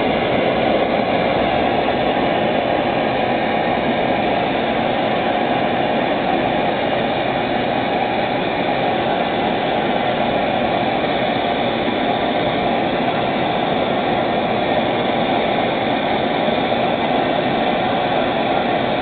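Gas burner flame hissing steadily as it heats the hot cylinder of a model Ross yoke hot air (Stirling) engine from cold.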